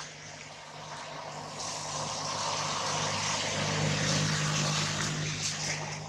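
A motor vehicle passing by: a steady engine hum under a rush of noise that swells to its loudest about four seconds in and then fades.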